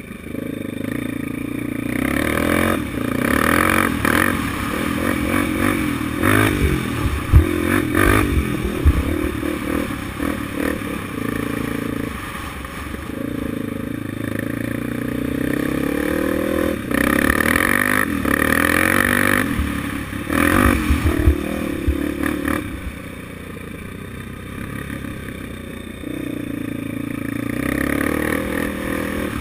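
Honda 400EX quad's air-cooled single-cylinder four-stroke, bored to 440 with stage 2 Hot Cams, rejetted and breathing through a Pro Circuit T-4 aftermarket muffler, revving up and dropping off again and again as it is ridden hard around a dirt track. Sharp knocks and clatter stand out about seven to nine seconds in and again around twenty-one seconds.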